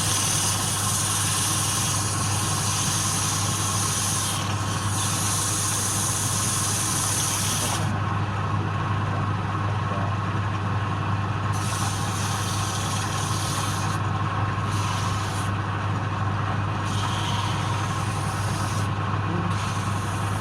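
Electric wood lathe running with a steady motor hum, and a high hiss from the turning that stops and starts several times.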